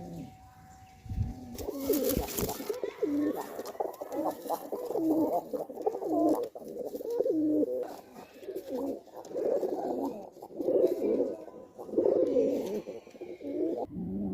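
Several domestic Giribaz pigeons cooing, one coo overlapping the next. A short loud rustling burst comes about two seconds in.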